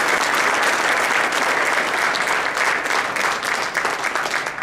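Audience applauding, many hands clapping at once, beginning to die down near the end.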